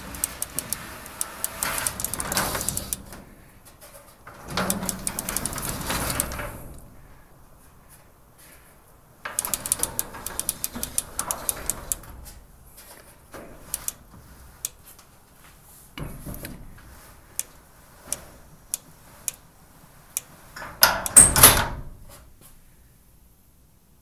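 Garage door moving on its cable-drum and pulley lift system: spells of rolling, rumbling noise full of rapid small clicks from the rollers and ball bearings, with the loudest spell near the end. There is no grinding from the cable winding onto the drum, since the pulley now slides along a bolt to keep the cable from binding.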